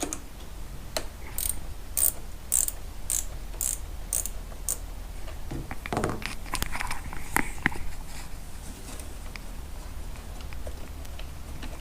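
An 8 mm ratchet wrench loosening the nut on the negative battery terminal, its pawl clicking in short strokes about twice a second. A few seconds later come some clanks and rattles of metal as the tool and cable are handled.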